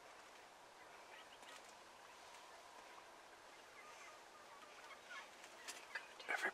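A flock of wild turkeys calling faintly with scattered short clucks and yelps. The calls come more often and louder near the end.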